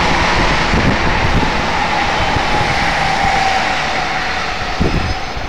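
Electric limited express train running past on the line: a loud steady rush of wheel and running noise with a whine that falls slowly in pitch, and a low thud near the end.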